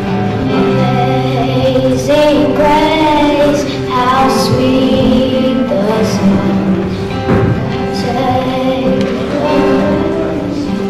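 A hymn sung by a group of voices with instrumental accompaniment, the melody moving through slow, held notes.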